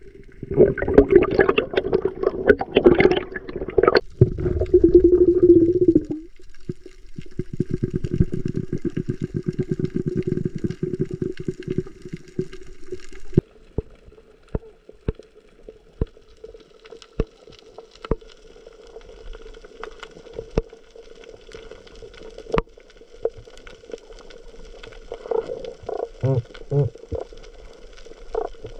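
Underwater sound on a spearfishing dive: water rushing and bubbling for the first dozen seconds, then quieter, with a steady low hum and scattered sharp clicks.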